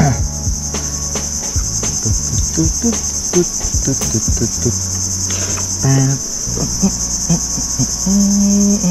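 Loud, steady, high-pitched chorus of insects in the mangroves, with scattered light clicks from a rod and baitcasting reel being handled.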